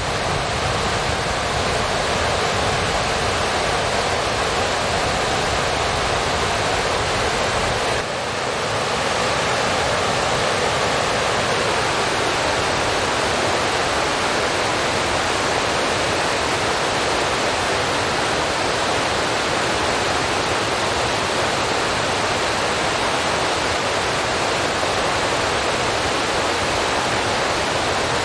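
A steady, even rushing hiss like running water or static, with no tones or rhythm; its deepest part drops away slightly about eight seconds in.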